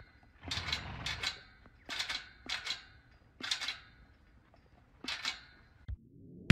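Chain on a steel pipe gate rattling and clanking against the metal bars as a horse mouths and works it, in a series of short rattles with brief pauses between them.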